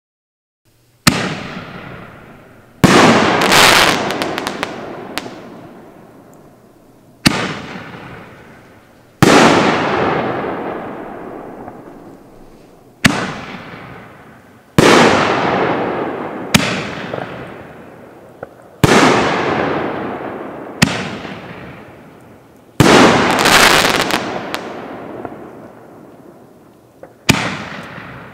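Canister firework shells fired one after another from a mortar tube: a sharp launch thump, then about two seconds later the shell's loud burst, each bang trailing off in a long echoing rumble. Two of the bursts are followed by a spell of crackling.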